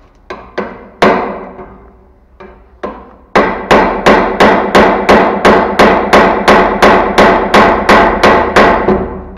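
Hammer blows on something hard, each with a short ringing note: a few scattered strikes, then a steady run of about three blows a second for some five seconds.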